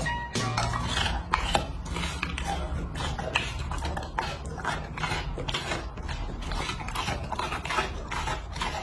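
Alaskan Malamute eating raw meat: a quick, irregular run of wet clicks and smacks from its chewing and licking.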